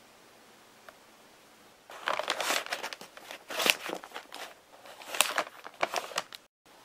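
Paper packaging rustling and crinkling as it is handled, in a run of crackly bursts starting about two seconds in, the loudest near the middle. It cuts off abruptly just before the end.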